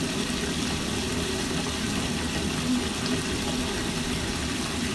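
Bathtub faucet running steadily, filling a tub heaped with bubble-bath foam.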